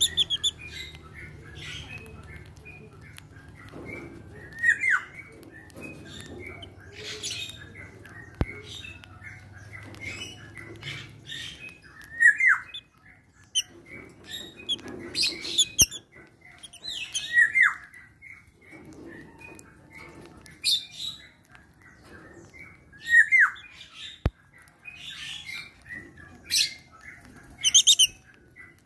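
A small flock of lovebirds chirping and squawking at close range: short high squeaks and a sharp falling chirp every few seconds. A low steady hum underneath stops about eleven seconds in.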